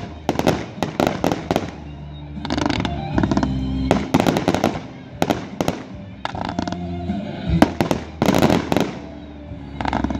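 Consumer fireworks going off: aerial bursts and ground fountains crackling and popping in rapid clusters, with short lulls between the volleys.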